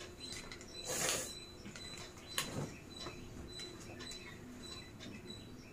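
A kurti's fabric rustling as it is unfolded and shaken out, with a brief swish about a second in and a soft knock a little later. A faint high-pitched chirp repeats steadily throughout.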